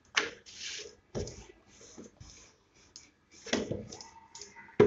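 A wooden rolling pin and hands working chapati dough on a floured wooden board: a string of short brushing scrapes and light knocks, the sharpest near the end.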